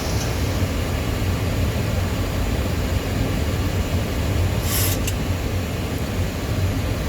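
Boeing 737 flight-deck noise on approach: a steady rush of airflow over a low hum from the engines and air-conditioning. A brief hiss and a click come about five seconds in.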